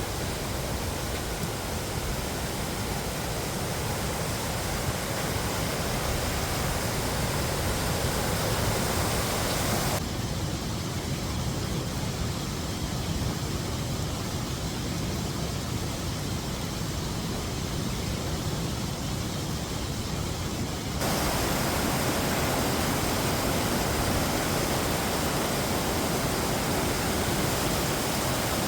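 Steady rushing of a mountain stream, an even hiss with no distinct events. Its character changes abruptly about ten seconds in and again about twenty-one seconds in.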